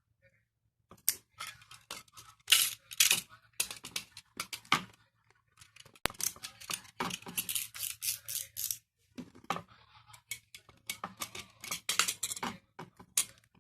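Irregular sharp clicks, scrapes and crackling of small hard objects being handled, in dense clusters starting about a second in, with a short lull about two-thirds of the way through.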